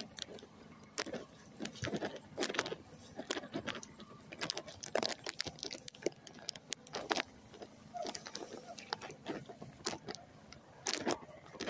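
Irregular crackling rustles and clicks, about one or two a second, from walking and working a hand spray lance through standing rice while spraying.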